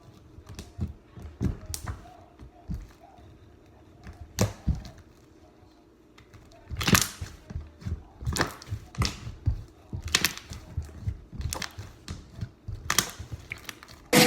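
Irregular clicks, taps and light knocks at close range, scattered unevenly with a short pause about five seconds in, as things are handled on a work surface.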